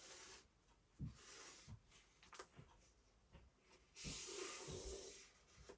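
Faint scraping and rubbing with a few light knocks: thin plywood and the old floor panel being handled and traced against each other. The longest scrape comes about four seconds in.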